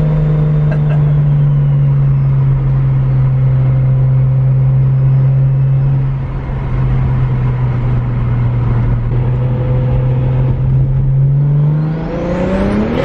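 Single-turbo BMW N54 inline-six with a VRSF 3.5-inch exhaust and street muffler, cruising with a loud, steady exhaust drone whose pitch sags a little. Near the end the revs climb sharply as the car accelerates.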